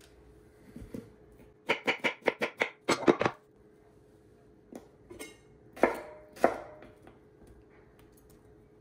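Chef's knife striking a wooden cutting board while cutting an onion: a quick run of about eight chops, then a few single knocks.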